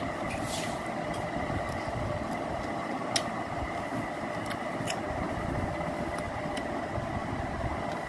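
Steady background hum and hiss with a faint high whine, broken by a few soft clicks.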